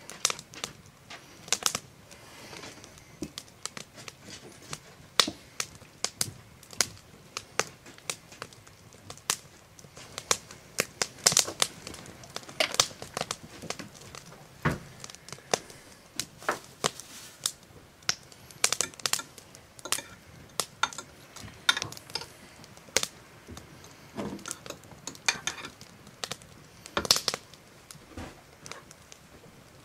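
Irregular clicks, taps and crinkles of kitchen handling: a plastic ketchup squeeze bottle squeezed over glass baking dishes, and a spoon spreading the ketchup against the glass.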